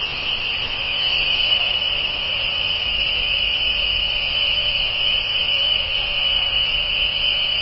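Night insect chorus: a steady, high, unbroken trill that holds level throughout.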